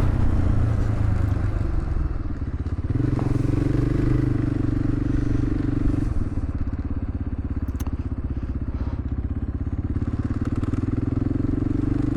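KTM 500 EXC's single-cylinder four-stroke engine running under way. Its note dips briefly and picks up about three seconds in, then eases to a lower steady pace about six seconds in.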